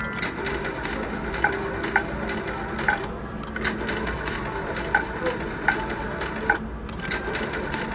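Slot machine play on a casino floor: a steady din of machines with irregular sharp clicks every second or so.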